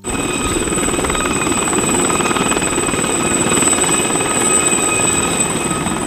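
Westland Gazelle helicopter lifting off into a low hover: a steady high turbine whine over the rapid chop of the spinning rotor blades.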